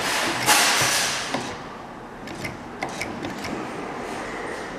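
Claw machine being played: a loud rubbing hiss for about the first second and a half, then a few sharp light clicks over a low steady machine hum as the claw is steered into place.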